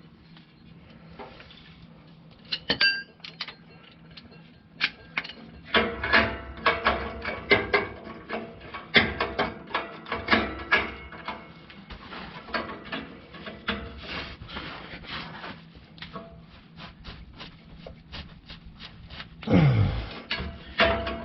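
Irregular metallic clicking and clinking of a ratchet, breaker bar and O2 sensor socket being worked on a rusted oxygen sensor, busiest through the middle. A short low grunt-like vocal sound comes near the end.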